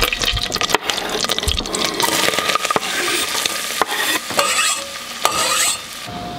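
Diced onion sizzling as it is scraped off a wooden cutting board into melted butter in a stainless steel pot and stirred, with several sharp clicks of the knife and board against the pot.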